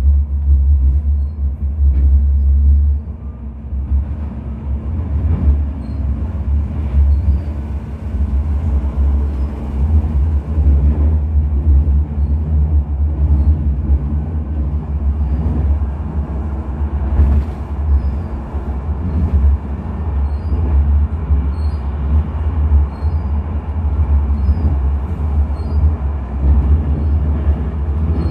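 Sheffield Supertram tram running at speed, heard from inside the passenger saloon: a loud, steady low rumble from the wheels on the rails and the running gear.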